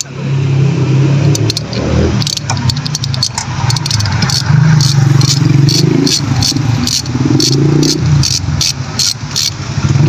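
A hand ratchet wrench with a 10 mm socket clicking at about three clicks a second as it loosens the glow plug terminal nut on a diesel engine, over a low steady hum.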